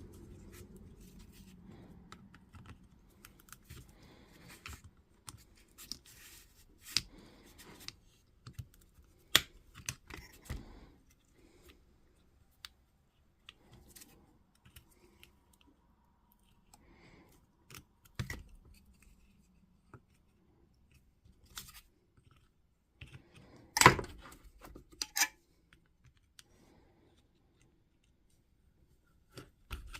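Quiet, scattered clicks, snips and handling noises of small hand tools working on the melted switch wiring inside an opened cordless angle grinder, with a sharper cluster of clicks about 24 seconds in.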